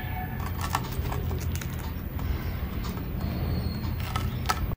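Crisp breadcrumb crust of a deep-fried bread roll crackling in scattered small crunches as it is pulled apart by hand, over a steady low rumble.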